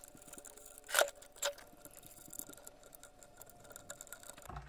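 Light metal handling noises as a hex key works the bolts of an aluminium lathe spindle housing: two sharp clicks about a second in, half a second apart, then faint ticks, and a low dull bump near the end as the spindle block is lifted.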